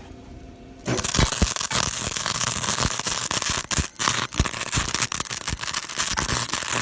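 Wire-feed welder arc crackling and spitting as a bead is run, starting about a second in, with the wire speed turned all the way up.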